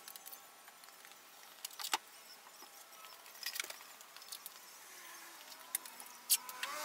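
Plastic masking sheeting crinkling and rustling in scattered sharp clicks as it is handled over a truck windshield. Near the end a passing vehicle's hum rises.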